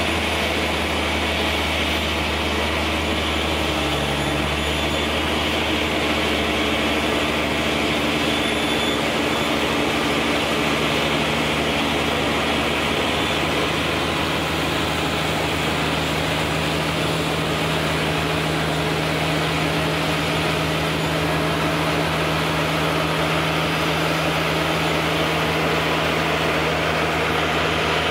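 Tractor diesel engine running steadily under load, driving a Krone loader wagon's discharge as it unloads chopped grass onto a silage clamp. A constant engine drone with a steady hum, shifting pitch briefly about four seconds in.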